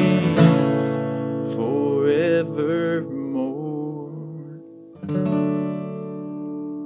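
Steel-string acoustic guitar strummed and ringing under a man's singing voice that wavers briefly on a closing line. About five seconds in, one final strummed chord is left ringing and fading out, ending the song.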